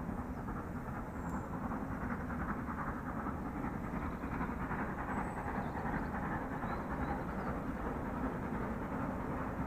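Steam locomotive approaching, still out of sight, its working sound growing slightly louder from about a second in.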